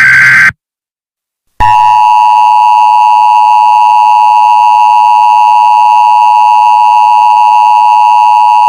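Emergency Alert System tones: the tail of a screeching SAME header data burst, a second of silence, then the loud, steady EAS attention signal sounding without a break.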